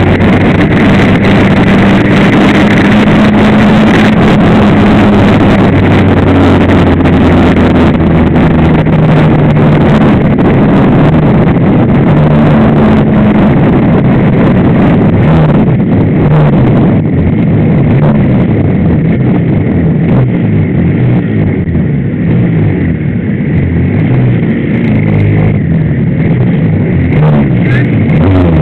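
Suzuki RGV250 two-stroke V-twin racing engine heard close up from its own fairing, running hard at high revs with the pitch stepping through gear changes, mixed with wind rush. About halfway through it eases off and runs at lower, more uneven revs.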